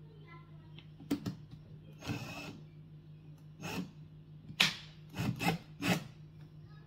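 Cordless drill run in reverse in several short bursts, a screw-extractor bit grinding in a small drilled-out plastic bolt. The extractor is not backing the stripped bolt out.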